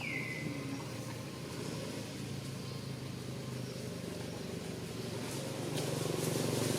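A vehicle engine running with a low hum that grows louder near the end as it approaches. A short, falling high squeak comes right at the start.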